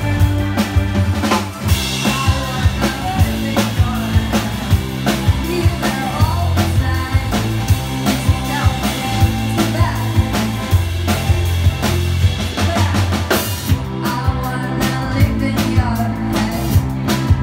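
Live band playing: a drum kit keeps a steady beat with cymbal crashes, under electric bass and electric guitar.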